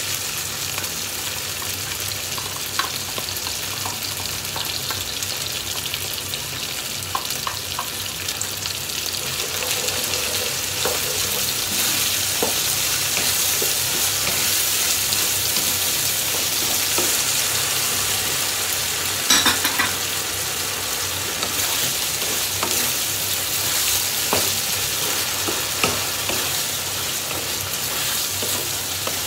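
Ground beef, bell pepper and tomato sauce sizzling in a nonstick frying pan, stirred with a wooden spatula: a steady sizzle with occasional taps and scrapes of the spatula on the pan. The sizzle grows a little louder after the sauce is mixed in, and a short clatter of taps comes about two-thirds of the way through.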